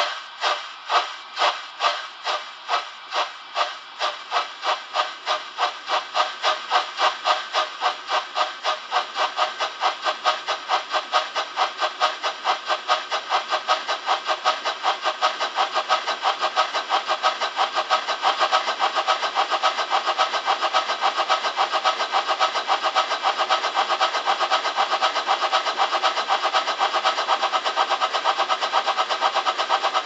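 DCC sound decoder in a Trix model of DB class 01 steam locomotive 01 118 playing steam exhaust chuffs through the model's small speaker. The chuffs start at about two a second and speed up steadily as the locomotive gets under way, settling into a fast, even beat about two-thirds of the way through.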